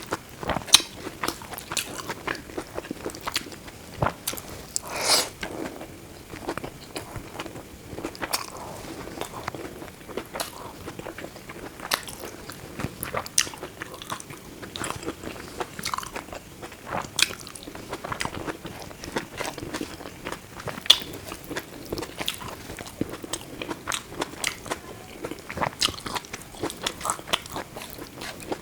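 Close-miked eating sounds of a person chewing Indian food: irregular crunchy bites and wet chewing clicks that keep up without a break.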